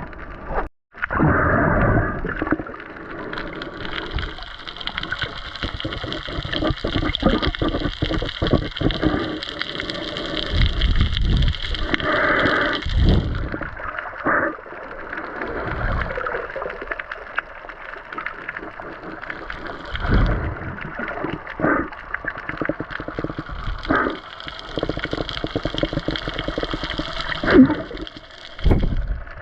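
Gurgling, bubbling water heard underwater, with many small clicks and swells of rushing noise.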